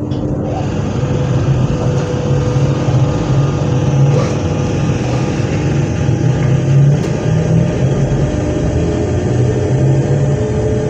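Z 20500-series (Z2N) double-deck electric multiple unit running, a steady low electrical hum with a faint whine that slowly rises in pitch near the end as the train gathers speed.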